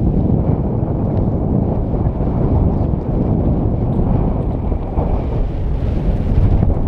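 Strong wind buffeting the microphone: a steady, loud, low rumble of noise.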